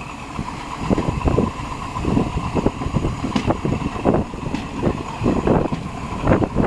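Train in motion: a steady rumble with frequent irregular knocks and clacks of the wheels running over the track, and a faint steady whine.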